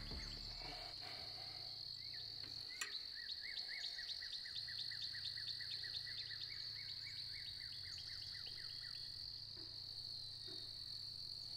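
Outdoor insect drone, a steady high-pitched hum, joined about three seconds in by a run of quick repeated chirps, around four or five a second, lasting some six seconds.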